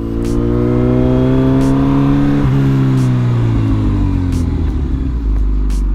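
Kawasaki Z900 motorcycle's inline-four engine, heard from the bike, rising in pitch as it accelerates. About halfway through the note steps down, then falls steadily as the bike slows and levels off near the end.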